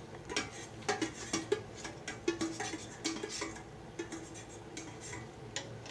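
Stainless steel ladle and tray knocking and scraping against a metal soup pot as chicken pieces are pushed off into the broth, a run of irregular light metal clinks with a few short ringing notes.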